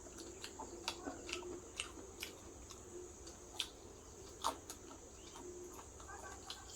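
Close-up eating sounds: irregular wet mouth clicks and smacks of chewing a mouthful of rice and curry, with two louder smacks around the middle.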